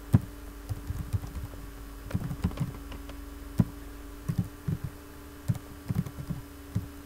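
Sony VAIO laptop keyboard being typed on: irregular key clicks, a few a second, as a terminal command is entered. A steady low hum runs underneath.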